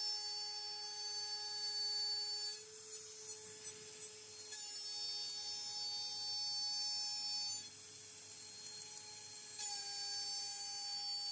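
CNC router spindle (AMB/Kress FME1050) running at high speed with a steady high whine. It drops to a quieter, slightly shifted tone twice and then comes back.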